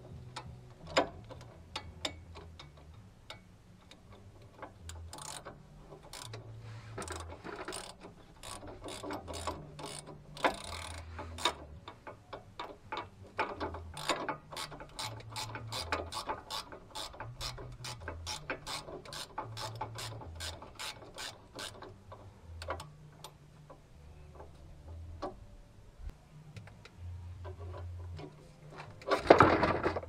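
Hand ratchet wrench clicking in quick runs of short strokes, tightening the nut on a truck's sway bar end link. There is a louder metallic clatter near the end.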